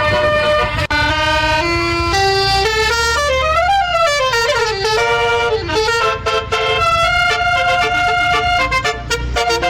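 Indonesian bus basuri (telolet) multi-tone air horn playing a melody of held notes, with a quick run of notes up and back down about three to five seconds in. A steady low rumble sits underneath.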